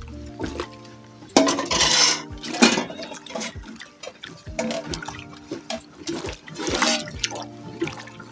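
Liquid sloshing and splashing in a bowl as hot water mixed with melted wax and paraffin oil is stirred, in irregular surges.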